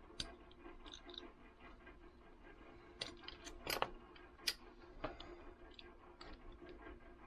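Small scattered clicks and taps of metal utility knife parts and blades being handled and fitted, with a few sharper clicks about three to four and a half seconds in.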